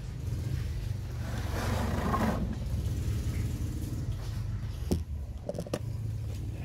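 Meiho MBD-46N belt and disc sander's 375-watt electric motor running: a steady low hum. A rougher scraping noise comes about two seconds in, and a few sharp clicks near the end.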